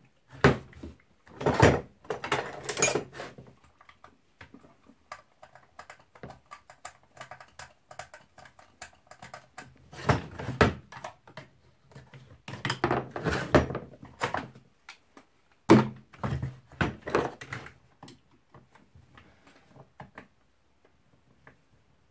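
Handling and tool noise as a Stihl 034 AV chainsaw is taken apart: scattered clunks and knocks of parts and tools, with a couple of longer scraping, rattling stretches.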